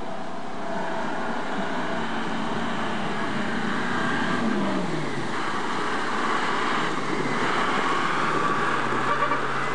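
Ural six-wheel-drive army truck's engine running as it fords a fast river, over the steady rush of the water and the spray thrown by the wheels. The engine note drops about halfway through, then holds steady at the lower pitch.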